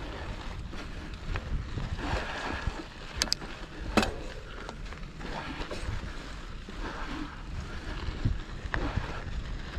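Mountain bike on Maxxis tyres rolling over a rocky dirt trail: steady tyre rumble and wind buffeting the camera mic, with scattered clicks and knocks from the bike rattling over rocks, the sharpest about four seconds in.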